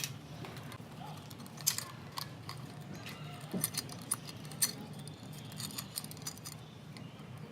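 Scattered light clicks and rattles of metal wire and glass beads being wrapped around a glass cup and cinched tight, over a low steady hum.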